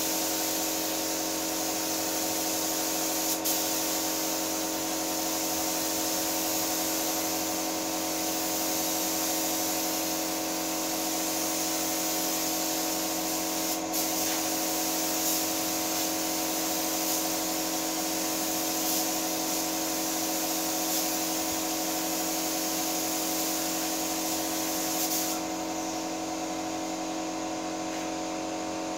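Paint spray gun hissing steadily as it sprays paint onto a car's side door, over a constant machine hum. The spray hiss stops about four seconds before the end, leaving the hum.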